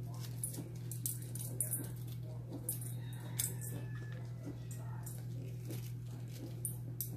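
Soft rustles and small clicks of latex-gloved hands pulling hot peppers apart and dropping seeds and ribs into a stainless steel bowl, over a steady low hum.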